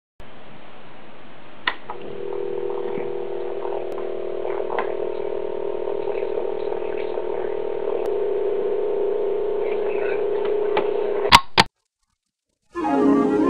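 Hissy, thin-sounding old-style audio: a click, then a steady hum of several held tones, like a sustained chord, lasting about nine seconds. It ends with two loud clicks and a second of dead silence.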